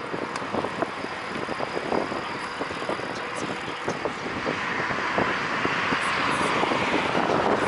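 Riding noise heard from a moving bicycle: a steady rush of wind and tyres on the pavement, with frequent small rattling clicks, growing a little louder toward the end.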